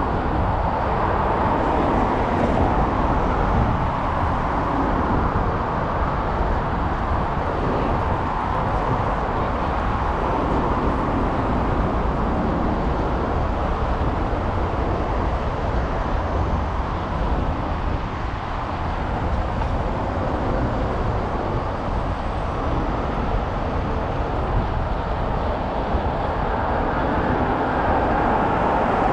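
Steady city traffic and road noise heard on the move, with a strong low rumble and no distinct single events.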